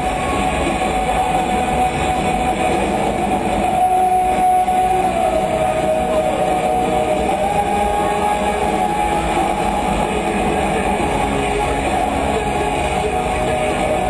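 Soundtrack of a lacrosse team's opening video over an arena sound system: one long horn-like tone held over a steady roar. The tone dips lower about five seconds in and comes back up a couple of seconds later.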